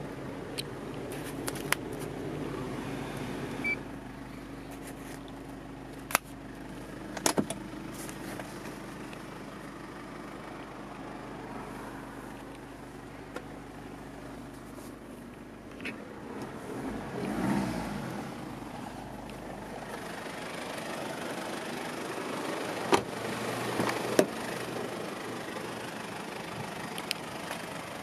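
Mitsubishi Pajero's 2.8-litre turbo diesel idling steadily, heard from inside the cabin, with a few sharp clicks and knocks from handling the interior and doors.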